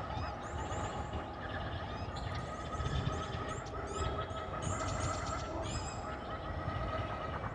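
Sci-fi alien-jungle ambience: a steady low rumble with a held mid-pitched tone, and repeated bursts of quick, high, creature-like chirps every second or so.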